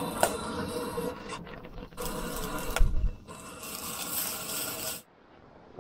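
Cooking at a gas camp stove: the burner's hiss and a pot of water at the boil, with clicks, scrapes and a heavy knock about three seconds in as the pot and spaghetti are handled. The sound stops suddenly about five seconds in.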